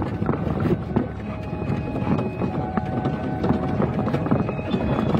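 Toyota HJ61 Land Cruiser's 12H-T turbo-diesel engine running at low speed, heard from inside the cab, with frequent knocks and rattles as the body jolts over loose rocks.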